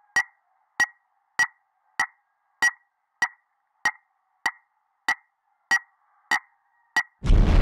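Electronic sound effect for a channel title card: a short two-toned blip repeating evenly about every 0.6 seconds, twelve times. A loud rushing burst with a deep rumble cuts in near the end.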